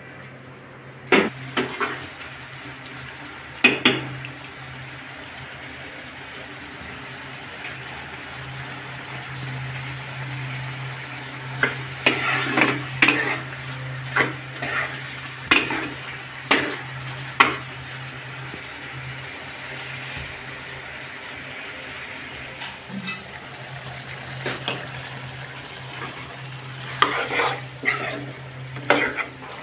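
A metal spatula scrapes and knocks against a wok while a prawn and taro-stolon curry is stirred, over a steady sizzle of the curry frying in its spices, the sauté (kosha) stage before water is added. The scrapes come in scattered clusters, busiest in the middle and near the end, with a low steady hum underneath.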